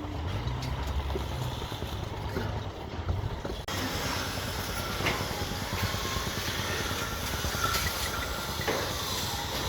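Steady machinery engine noise with hiss and a low rumble; the sound changes abruptly about a third of the way in.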